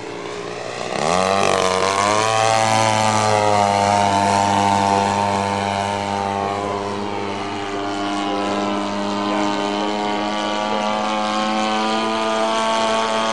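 XYZ 50cc single-cylinder gasoline engine and Xoar 20x8 propeller of a 27% scale CAP 232 RC aerobatic plane in flight. About a second in the engine note climbs sharply and gets louder, then runs steadily with a slight wander in pitch.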